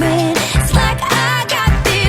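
Background pop music with a sung vocal over a steady beat and bass.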